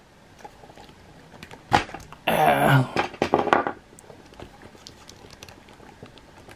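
Hands working the head off a 1/6 scale action figure: light clicks and rubbing, with a sharp click a little under two seconds in. A short wordless vocal noise, the loudest sound, follows the click.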